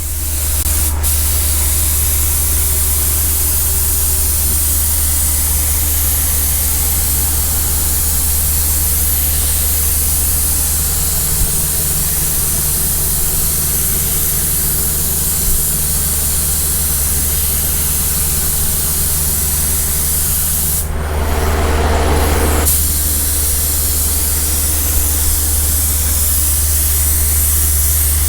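Paint spray gun hissing steadily as it sprays direct-to-metal primer. About three quarters through, the spray breaks off for a second or two, then resumes.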